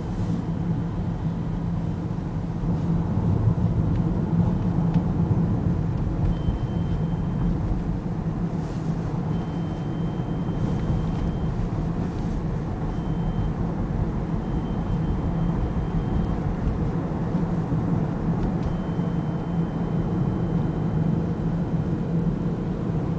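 BMW 320i (F30) running, with a steady low rumble and a faint high-pitched "pee" whine that comes and goes about five times. A repair shop took the whine for the air-conditioning compressor's intake noise.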